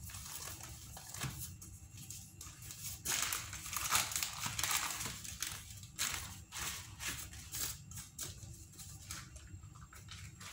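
Wax paper rustling and crinkling in irregular bursts as a sheet of ready-made pastry crust is unrolled and handled on it.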